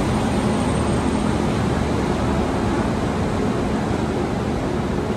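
WAP-7 electric locomotive moving slowly past at close range, its cooling blowers running as a steady, dense rushing noise.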